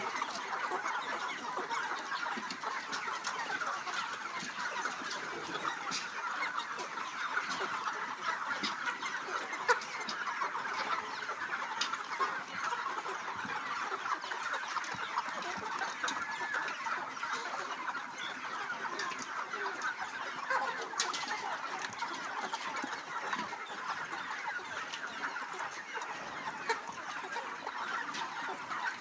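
A large flock of broiler chickens clucking all together in a dense, continuous chorus of overlapping calls. A brief sharp click about ten seconds in.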